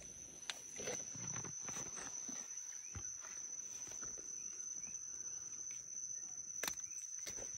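Insects, typical of crickets, chirring in one continuous high tone. Over it come rustling and a few sharp clicks from handling and pruning shears snipping a dragonfruit stem, the loudest about two-thirds of the way in.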